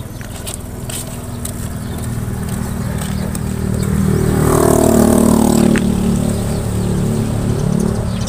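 Motor vehicle engine running, swelling to its loudest about five seconds in, its pitch dropping around the peak, then easing off slightly.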